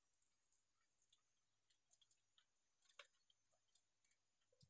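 Near silence with faint, scattered clicks and smacks of dogs eating rice from steel bowls, one sharper click about three seconds in.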